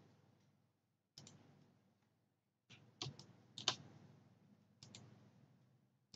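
Faint, scattered clicks of a computer mouse and keyboard, about half a dozen of them and some in quick pairs, with near silence between.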